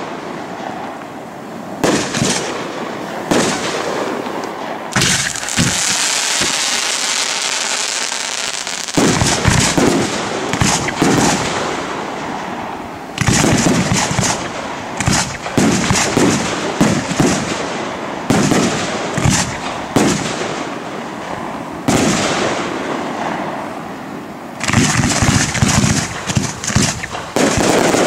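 Aerial fireworks display: shells bursting in the sky with repeated loud bangs. About five seconds in comes a steady hissing stretch of about four seconds, followed by quick volleys of bangs, densest near the middle and again near the end.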